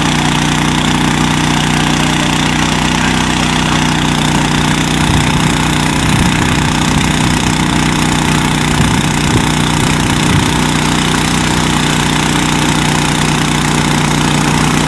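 A small engine running steadily at an even idle.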